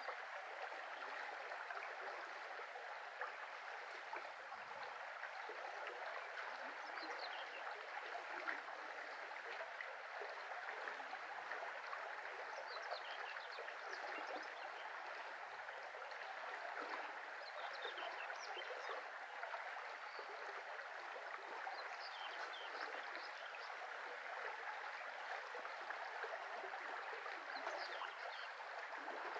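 Shallow brook flowing steadily over its bed, an even, unbroken water sound.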